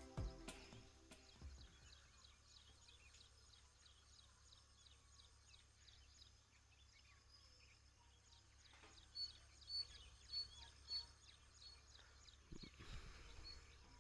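Near silence with faint bird chirps in the background, including a run of about five short, evenly spaced high notes about nine seconds in.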